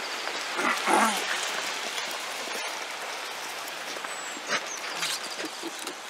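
Steady outdoor street noise, with a short animal-like call about a second in and a few faint high chirps.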